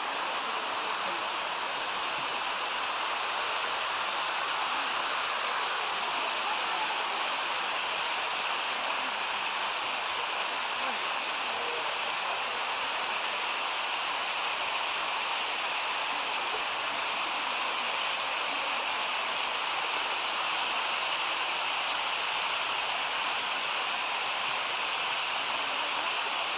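Steady rush of a stream's water tumbling down a waterfall cascade.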